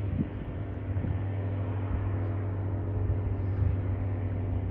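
Cirrus SR22 light aircraft's six-cylinder piston engine and propeller droning steadily on final approach, growing slightly louder. Wind buffets the microphone now and then.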